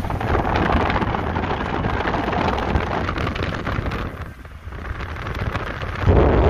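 Wind rushing over the microphone with the rumble of a moving car, filmed through an open car window. It dips briefly past the middle and surges louder near the end.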